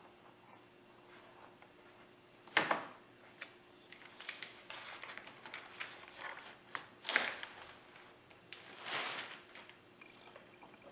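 Decal sheet being handled and peeled, with paper rustling and crinkling, small clicks, and louder scratchy bursts about two and a half, seven and nine seconds in.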